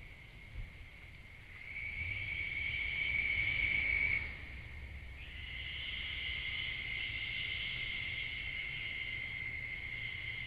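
A night insect trills steadily at a high pitch in long, unbroken runs: one from about a second and a half to four seconds in, and another from about five seconds on. A low rumble sits underneath.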